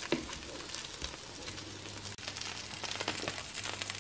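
Pan-fried dumplings sizzling quietly in a little oil in a nonstick pan, a light patter of scattered crackles.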